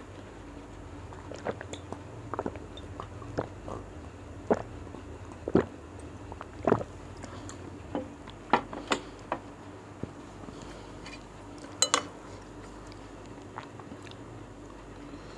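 Close-miked mukbang eating sounds: scattered short clicks and smacks of chewing and swallowing bakso meatballs and rice, with a few clinks of fork and spoon against the soup bowl. The sharpest cluster of clicks comes about twelve seconds in.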